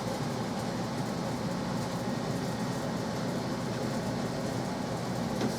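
Steady low rumble of a moving vehicle, with no separate knocks or changes.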